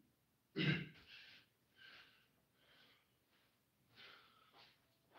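A man breathing hard after a set of push-ups: a loud gasping breath about half a second in, then a run of heavy breaths about every second.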